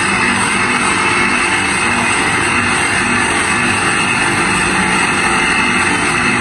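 Bench buffing motor running steadily, its cloth buffing wheel spinning against a plastic car headlight lens being polished, a continuous machine noise with a rushing hiss.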